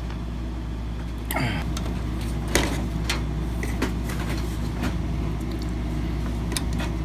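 Scattered light clicks and knocks of a CPU cooler's back plate and heat sink being handled and lined up against a desktop motherboard, over a steady low hum.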